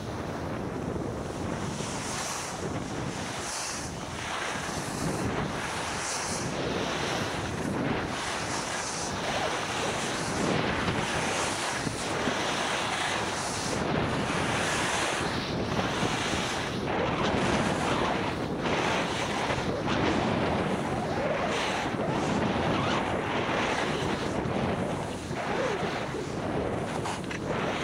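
Wind rushing over a helmet-mounted camera's microphone while skiing downhill, mixed with the hiss and scrape of skis sliding on snow. It grows louder over the first ten seconds or so and then swells and eases every second or two.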